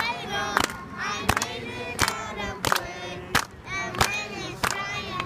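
A group of children and adults singing a Hanukkah song together, with steady rhythmic hand claps about every two-thirds of a second keeping the beat.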